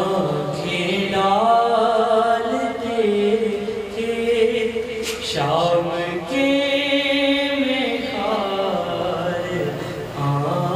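A man's voice chanting a noha, an Urdu mourning lament, in long, wavering held notes.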